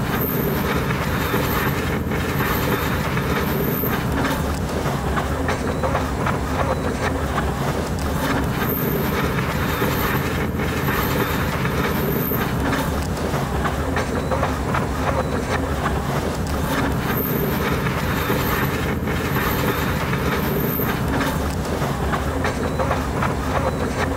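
Diesel passenger train running steadily at speed, heard from an open window: the continuous noise of the wheels on the track and the engine, with a faint high whine that comes and goes a few times.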